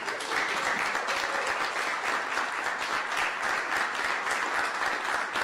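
Audience applauding, a steady crowd of hand claps.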